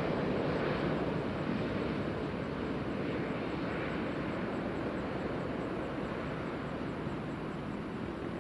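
Jet engine noise from a landing Airbus A380-861's four Engine Alliance GP7200 turbofans, a steady rushing roar heard from a distance that slowly fades as the airliner settles onto the runway.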